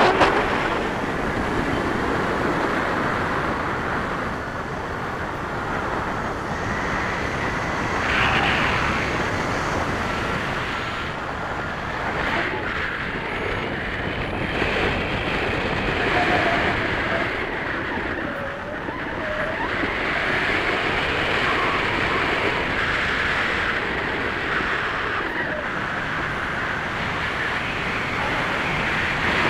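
Wind rushing over the microphone of a camera on a pole during tandem paragliding flight: a steady rush with slow swells.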